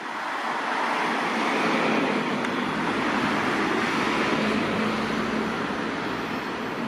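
A vehicle passing close by on the street: a rush of rolling noise that swells over the first two seconds, holds, then slowly eases off.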